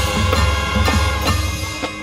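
Marching band playing: brass holding a chord over percussion strokes, with a strong deep low sound underneath that stops shortly before the end.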